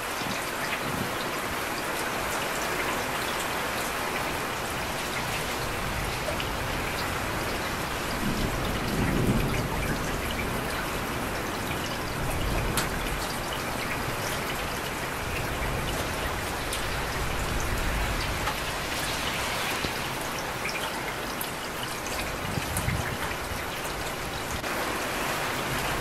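Steady heavy rain pouring down, a continuous hiss with individual drops ticking, and a few soft low swells in the background.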